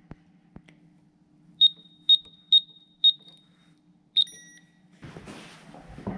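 Pin-code keypad on an electronic door handle lock beeping as its buttons are pressed: four short high beeps about half a second apart, then a fifth a second later followed by a brief signal tone of several pitches. A soft rustle near the end.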